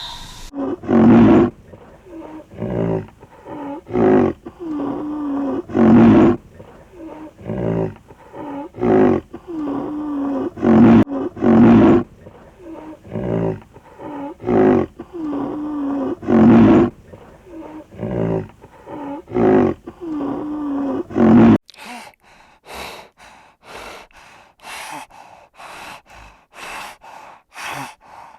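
Animal calls: a long, rhythmic series of loud roaring calls, about one a second, alternating louder and softer phrases. About three-quarters of the way through it cuts off abruptly to a different sound of rapid, short, breathy puffs.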